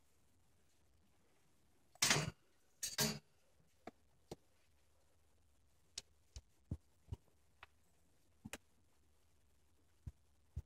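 Two brief rustles about two and three seconds in, then a dozen scattered light clicks: a hand and a ferret moving in a wire cage and its fleece bedding.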